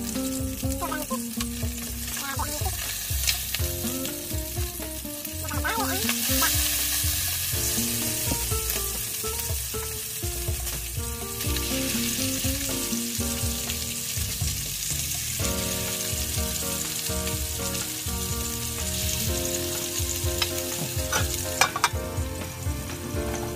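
Salmon steaks sizzling in hot oil in a nonstick frying pan, with a spoon and spatula scraping and turning the fish. Near the end a few sharp clicks as a metal lid is set on the pan.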